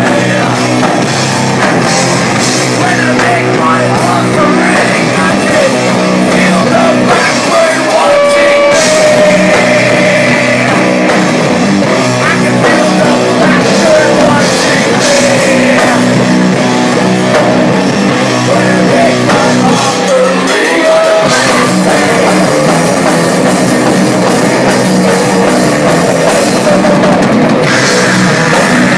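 Live rock band playing loud and without a break: a drum kit with cymbals, electric guitars and a vocalist singing into a microphone.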